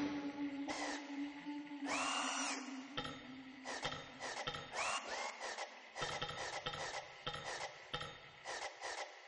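Sound-design effects: a run of short, irregular scraping and clicking strokes, about two a second, with a few squeaky chirps that rise and fall. A low steady tone fades out in the first couple of seconds.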